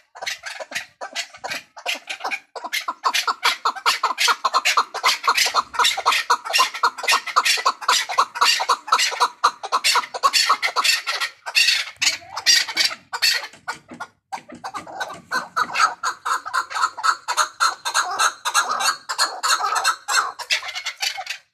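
Chukar partridge calling: a long run of rapid, repeated chuck notes, with a short break about two-thirds of the way through.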